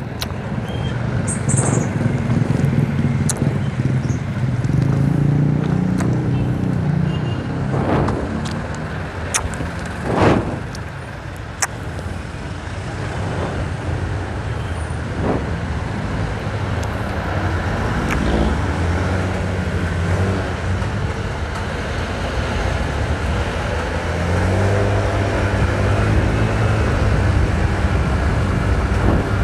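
Motorcycle engine running under way, with wind and road noise. The engine note rises and falls with the throttle, climbing about a quarter of the way in and again near the end, and a few brief sharp sounds come from the passing traffic.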